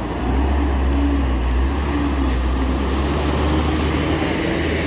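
Diesel engine of a Mitsubishi light truck under load, climbing a steep dirt incline as it passes close by: a steady deep drone that grows louder about half a second in.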